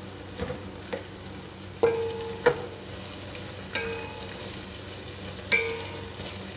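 Sliced onions sizzling as they fry in hot oil in a metal pot, stirred with a metal spoon that scrapes and clinks against the pot about four times.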